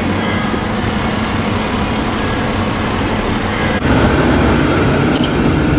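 Outdoor city street ambience: a steady rumble of traffic noise. About four seconds in it cuts abruptly to a louder street background.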